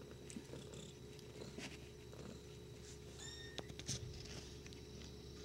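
Faint, steady purring of a RagaMuffin cat, with one short high squeak from a kitten a little past three seconds in, followed by a couple of soft knocks.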